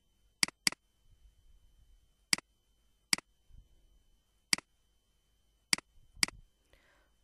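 Computer mouse clicking: about seven sharp single clicks at irregular intervals, with a quick pair close together near the start.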